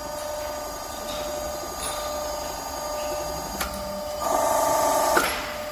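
Hydraulic hose crimping machine running with a steady mechanical hum and a few sharp clicks. It grows louder for about a second near the end, typical of the hydraulic pump working under load as the dies move.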